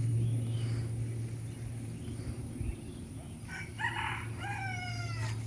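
Rooster crowing, starting about three and a half seconds in with a few short notes and then a longer call that falls slightly in pitch, over a steady low hum.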